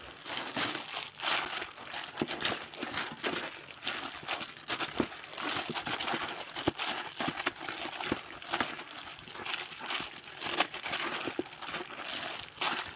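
Plastic bag over a hand crinkling as it kneads and stirs grated frozen ice cream mixture in a plastic bowl: irregular rustling with many short crackles.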